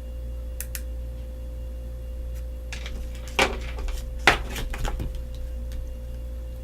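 Handling noise from a slim power bank: a few light clicks, then two sharper knocks about three and a half and four and a half seconds in, with a few smaller taps after, over a steady low electrical hum.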